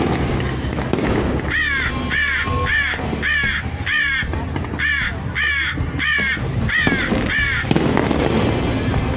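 An animal call repeated about ten times at a steady pace, roughly one every 0.6 s, over fireworks bursting and crackling, which are heard clearly at the start and again near the end.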